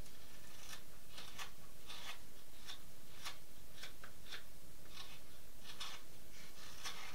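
Carving knife taking small shaving cuts from the pine bill of a wooden duck decoy: a string of short, dry scraping strokes, about fifteen, at an uneven pace.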